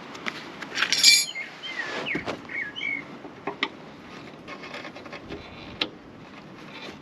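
Hand and tool sounds at the exhaust's rubber hanger rings on a Mercedes 190D: a loud metallic scrape about a second in, then short squeaky chirps and a few sharp knocks.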